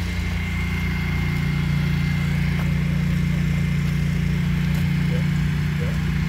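A steady low engine drone, as of an engine idling close by, with a faint steady high whine above it.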